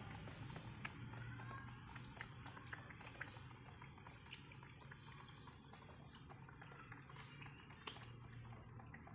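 Faint water sounds in a plastic tub of live fish and toy animals, with scattered small clicks and a low hum underneath.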